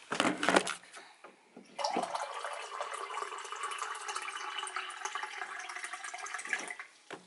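Water running steadily for about five seconds, filling a drinking glass, after a few knocks of the glass being handled at the start.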